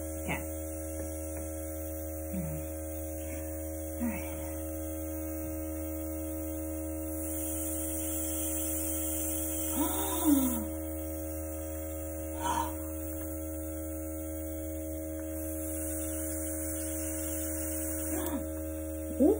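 Airbrush makeup compressor running with a steady hum. The airbrush hisses out air in two stretches, about seven seconds in and again from about fifteen seconds, as blush is sprayed. A few short vocal noises break in.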